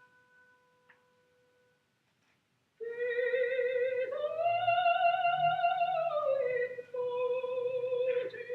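A faint held note fades out. About three seconds in, a loud single wavering note with vibrato starts, glides up and back down, and holds on.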